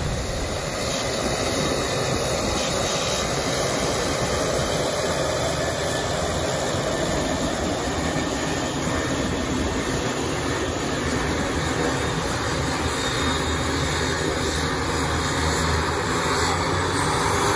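Pratt & Whitney PT6A turboprop engines of Air Tractor AT-802F Fire Boss water bombers running steadily on the ramp, a constant propeller-and-turbine noise with a faint steady whine.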